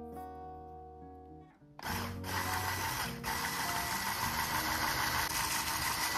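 Acoustic guitar music, then about two seconds in an electric hand blender with a whisk attachment starts and runs at a steady speed, beating an egg into choux pastry dough. The music carries on faintly underneath.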